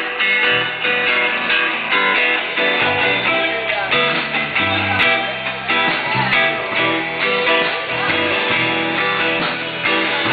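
Live band music with a strummed electric guitar to the fore.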